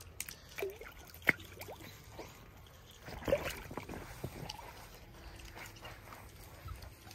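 Otters eating, with scattered sharp clicks and crunches and a brief squeak. The loudest is a single sharp snap about a second in, and a busier cluster of sounds comes about three seconds in.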